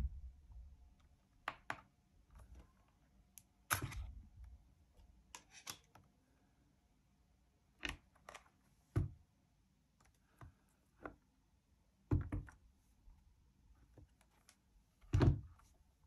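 Handling noise from a Yoto Player 3rd Gen: scattered light clicks and knocks as its card is taken out and the player is turned over in the hands. A louder thump comes about 15 seconds in as the player is set down on a wooden table.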